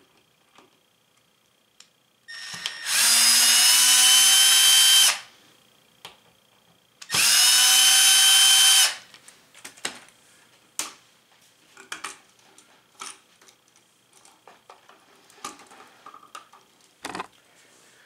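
Milwaukee cordless drill/driver backing out an electrical outlet's top and bottom mounting screws: two runs of the motor, each two to three seconds long, with a steady whine. Light clicks and taps follow.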